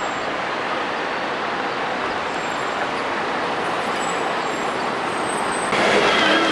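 MAN three-axle double-decker bus engine running as the bus pulls along the street, over steady traffic noise. About five and a half seconds in, the sound cuts abruptly to louder street traffic, with another bus passing close.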